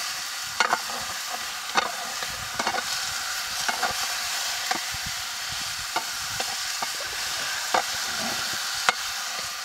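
Lamb meat frying and sizzling in hot oil as it is stirred, with irregular scrapes and knocks of the stirring spoon against the pan.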